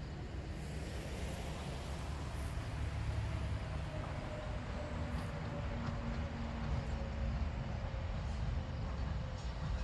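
Low, steady rumble of road traffic on the highway bridge, with a truck passing about halfway through, over the growing rumble of steam locomotive 7470 drawing near through the underpass. The sound gets slowly louder throughout.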